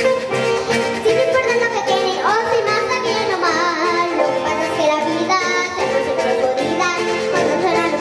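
A young girl sings a carranga-style Colombian song into a microphone, backed by strummed acoustic string instruments.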